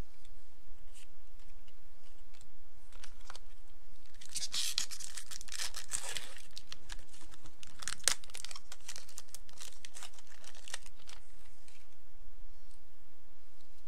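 Foil wrapper of a Magic: The Gathering booster pack being torn open and crinkled, the tearing densest about four to six seconds in, with a sharp rip about eight seconds in. A few light clicks from handling come before and after.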